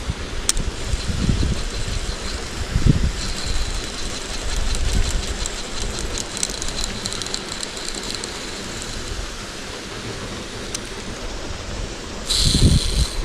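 Mountain stream rushing steadily, with low thumps of wind and handling on the microphone early on and again near the end.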